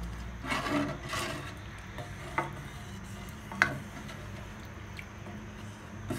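Wooden spatula stirring soaked rice in watery masala in a stainless steel pot, with swishing through the liquid and a few sharp knocks of the spatula on the pot, the loudest about three and a half seconds in.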